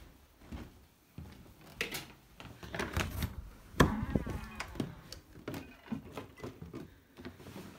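Irregular footsteps and knocks of someone walking through rooms with a handheld camera. The loudest knock comes about four seconds in, as a doorway is passed, followed by a short scraping sound.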